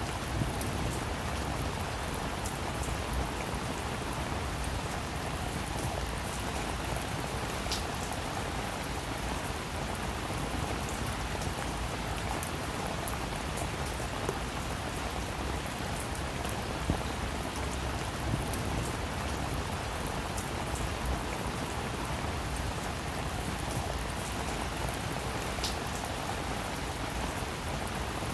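Steady rainfall with scattered individual drops ticking sharply on a surface.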